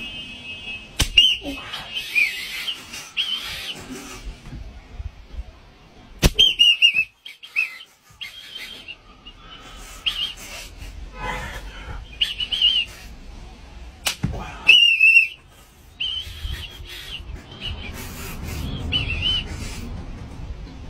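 Short shrill whistle blasts, repeated many times, from a whistle held in the mouth, broken by a few sharp snaps of a stretched rubber band flicked against a bare leg.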